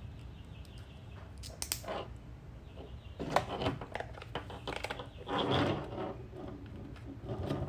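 Small plastic wiring connector being handled: a few short clicks and scrapes as its terminal position assurance (TPA) lock is pushed in and the connector is fitted into the Serial Data Gateway module.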